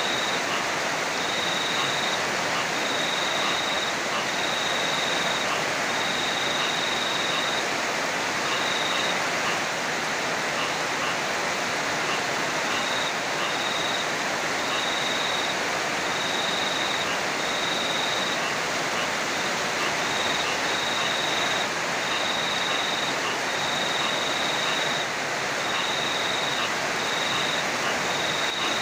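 Steady heavy rain pouring. Over it, a high-pitched insect trill comes in stretches of about a second, again and again.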